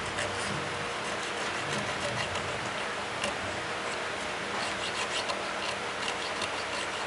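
A hand file cutting decorative grooves into a bronze knife fitting, a steady rasping made on the push strokes.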